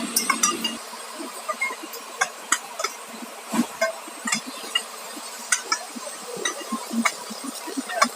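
Irregular metallic clinks and light knocks of hand tools against steel track parts, a few every second.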